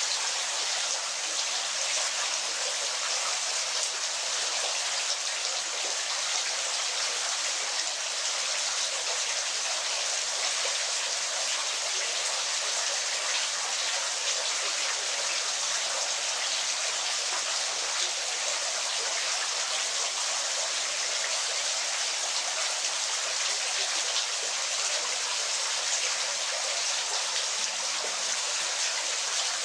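Waterfall: falling water running in a steady, even rush with little low rumble.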